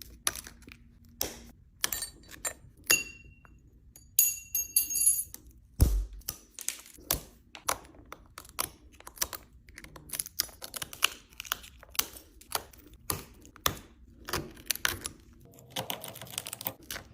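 Shattered iPhone 13 Pro Max back glass being chipped and pried off the phone with a hand tool: many irregular small clicks, taps and cracks. A few brief high tones sound about three to five seconds in.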